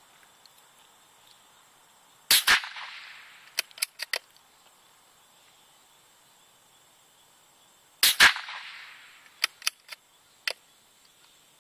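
.22 bolt-action rifle fired twice, about six seconds apart, each shot trailing off in a brief echo. About a second and a half after each shot comes a quick run of three or four sharp metallic clicks: the bolt being worked to eject the case and chamber the next round.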